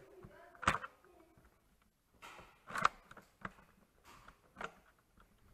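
Nerf Delta Trooper blaster being primed and fired at a steady pace: several sharp plastic clacks at irregular spacing, the loudest about three seconds in, as the shooter empties the clip.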